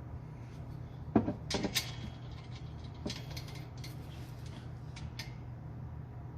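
Metal clinks of hand tools and exhaust bolt hardware being handled: a sharp clink about a second in, a few more right after, and scattered lighter taps later, over a steady low hum.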